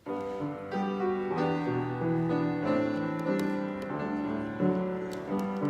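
Piano playing slow prelude music in held chords, starting abruptly at the opening.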